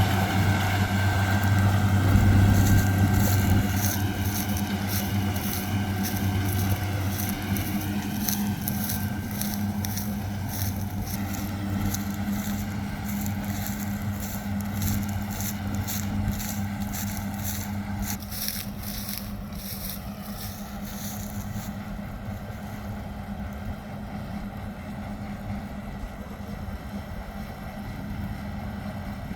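Round baler at work: a steady machine hum with a rhythmic clicking, about two clicks a second, that stops about three-quarters of the way through.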